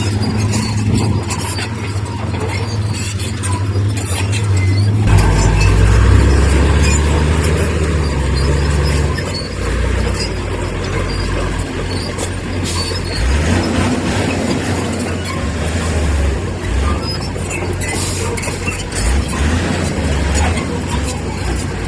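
Komatsu bulldozer's diesel engine working under load while its steel tracks squeal and clank over stone. The engine note drops lower and grows louder about five seconds in.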